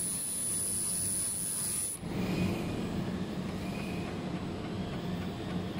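1500 W laser welding machine welding a metal tube turning in a rotary chuck: a steady hiss with a thin high whine that cuts off suddenly about two seconds in as the weld stops, leaving a lower machine hum.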